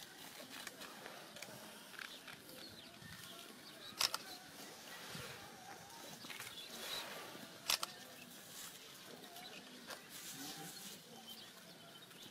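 Hushed outdoor crowd standing in silent prayer: faint rustling and shuffling with a few bird chirps, broken by two sharp clicks about four and eight seconds in.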